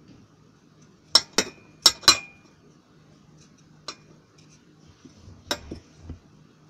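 Sharp clinks of hard objects knocking together: four in quick succession starting about a second in, one with a brief ring, then a single one near four seconds and a few more around five and a half seconds.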